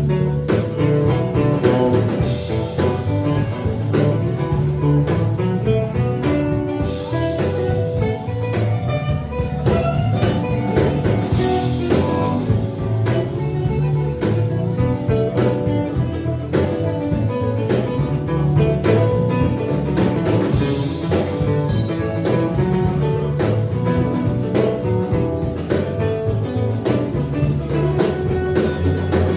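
Background music: a blues-style track with guitar and drums and a steady beat.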